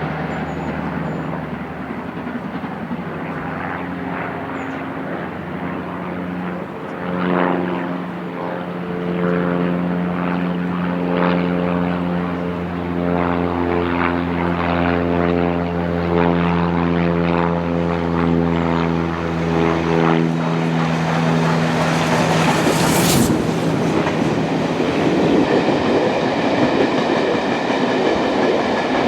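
Steady droning engine, most likely a propeller aircraft, holding an even pitch for about twenty seconds and then fading. A train then rushes past, with a sharp crack just after it starts.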